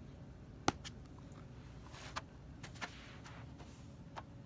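Handling noise from a MacBook Pro lying upside down on carpet: one sharp knock a little under a second in, then a few lighter clicks and a brief rub of a hand on the aluminium bottom case.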